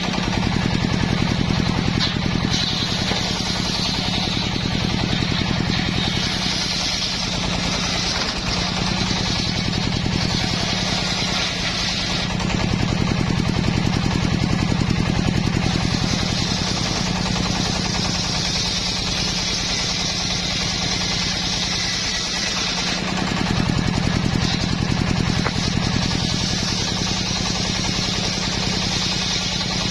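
Homemade circular saw bench ripping teak boards: the large blade runs with a steady low hum, and a high cutting hiss comes and goes as each board is fed through, over several passes.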